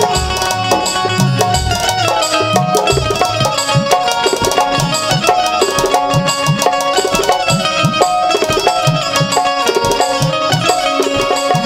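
Instrumental interlude of a Chhath folk song: a hand drum keeps a steady, busy rhythm under a stepping melody line, with no singing.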